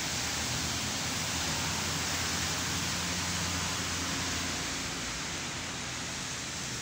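Steady rain hissing down onto a wet street. A low hum underneath drops away about two-thirds of the way through.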